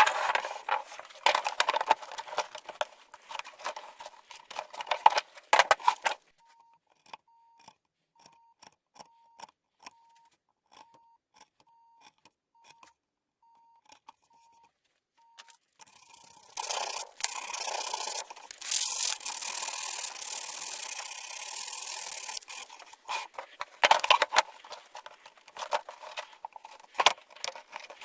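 Wood chisel paring and scraping a wooden workpiece by hand in quick, irregular strokes with small clicks. It pauses near the middle, then comes a steady rasping stretch of about six seconds, and short scraping strokes return near the end.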